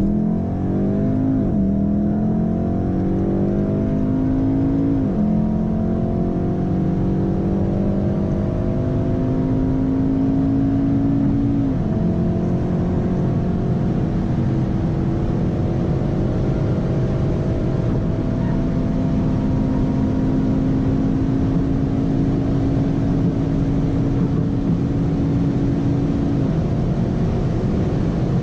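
Volkswagen Golf engine heard from inside the cabin under full-throttle acceleration, rising in pitch with quick drops at three upshifts in the first twelve seconds, then pulling slowly and steadily higher in top gear at high speed, over loud road and wind noise.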